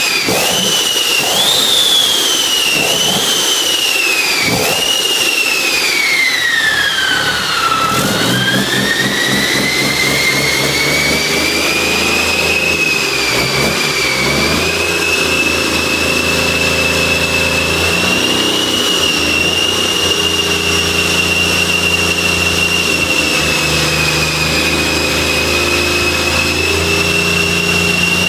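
Cummins QSM11 inline-six diesel engine running, revved up and down in several short blips, then falling off to a low about eight seconds in before climbing back and holding a steady speed. A high whine follows the revs.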